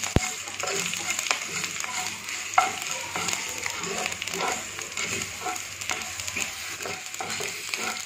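Tadka of mustard seeds, curry leaves and green chillies sizzling in hot oil in a nonstick pan, stirred with a wooden spatula that scrapes and taps against the pan. There is a sharp click just after it starts.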